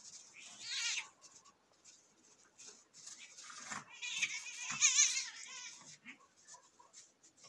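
Cat yowling in distress as a jagdterrier handles it roughly: a short wavering, high-pitched cry near the start, then a longer run of wavering cries from about three seconds in, loudest around five seconds.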